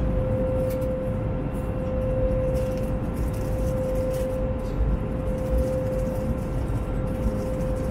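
Airbus A321neo cabin noise in flight: a steady low rush of air and engine, with one steady droning tone above it.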